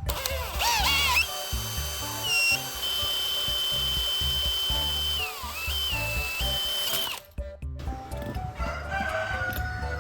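A power tool's motor spins up to a steady high whine. Its pitch dips briefly and recovers partway through, and it stops abruptly about seven seconds in. Background music with a steady beat plays throughout.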